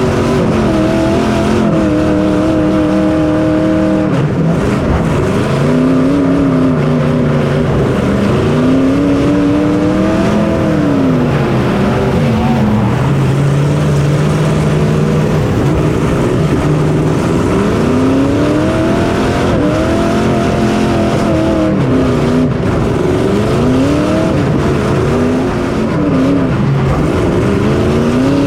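Small race car's engine heard from on board at racing speed, its pitch climbing and dropping every few seconds as the throttle opens and closes, with a steadier stretch midway.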